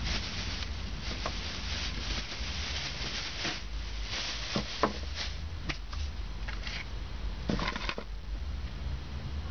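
Clear plastic bag rustling and crinkling as it is handled and tipped, in uneven bursts, with a few sharp clicks around the middle.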